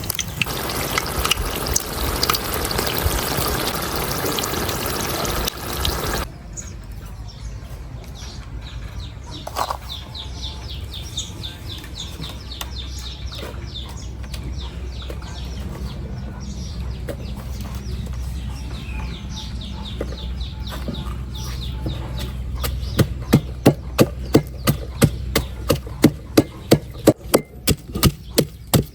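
Water running and splashing for about six seconds, then quieter, with faint light ticking. About 23 seconds in, steady chopping starts, a knife striking a wooden board about twice a second.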